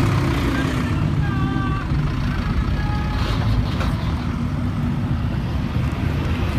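Car-carrier trucks and cars rolling slowly past on a street, their engines making a steady low rumble, with a few short high-pitched sounds over it.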